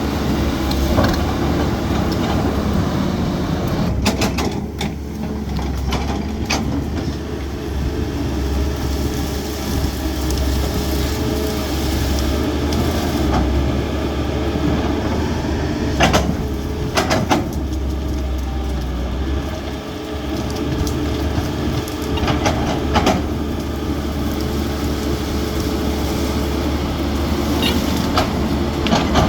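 CAT 320D excavator's diesel engine running steadily under working load, with occasional sharp knocks and clanks, a few of them in quick pairs.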